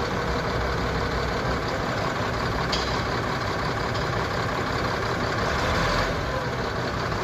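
Caterpillar D7G bulldozer's diesel engine running steadily under load, with a sharp metallic click about three seconds in.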